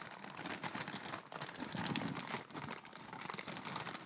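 A soft bag rustling and crinkling in the hands with irregular crackles, as a microphone is drawn out of it.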